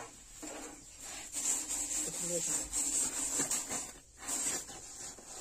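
Straw hand broom sweeping across the hot metal saj griddle, a dry rasping brush in strokes: one long stretch in the middle and a short one near the end.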